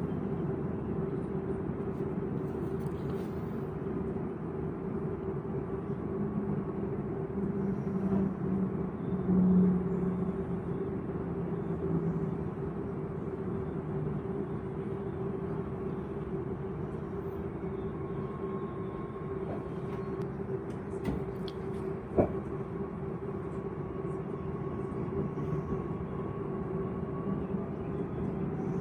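Cabin noise inside an SNCF Z 50000 Francilien electric multiple unit: a steady hum from the train's running equipment. A faint higher whine joins about 18 seconds in, and a single sharp knock comes about 22 seconds in.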